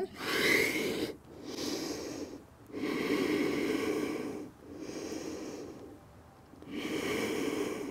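A woman breathing deeply in and out, five long breaths with a pause near the end, as she catches her breath after exertion.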